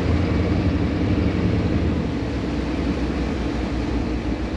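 Inboard diesel engines of a fibreglass motor cruiser running under way: a loud, steady low rumble with a broad hiss over it.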